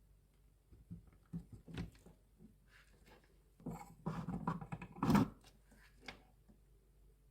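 Small clicks, knocks and scrapes of parts being handled, with a denser flurry about four seconds in and the loudest knock just after five seconds.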